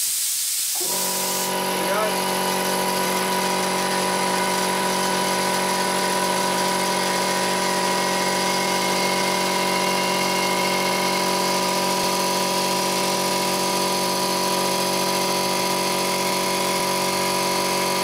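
Hiss of compressed air being bled from the tank. About a second in, the air compressor's electric pump motor starts and runs steadily, then shuts off abruptly near the end: the pressure switch, just turned down, cutting out at its new lower setting.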